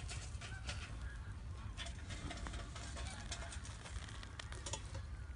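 Fire crackling: scattered small pops and ticks from the burning charcoal and the sparking stove, over a steady low rumble.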